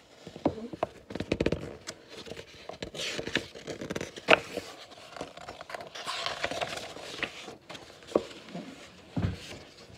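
Pages of a hardcover picture book being turned and handled: paper rustling and crinkling, with a scatter of sharp clicks and light knocks.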